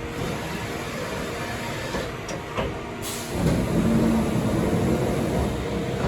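CNC turning centre running: a steady machine hum with a few sharp clicks, swelling into a louder low motor hum about three seconds in.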